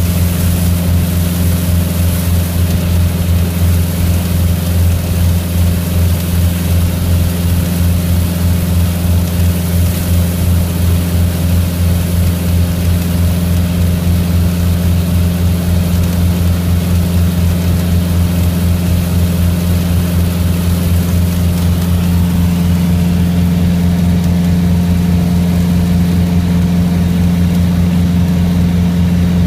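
Cessna 150's Continental O-200 four-cylinder engine and propeller running steadily in flight, heard from inside the cockpit as a loud, even drone with a hiss of air noise over it.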